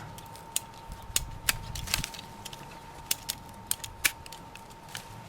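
Pruning shears (secateurs) clicking as they are handled and worked: a string of sharp, irregularly spaced metal clicks.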